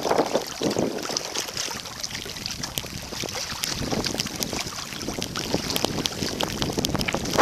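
Kayak paddling: water splashing and dripping off the paddle, many small splashes and drips, with wind buffeting the microphone.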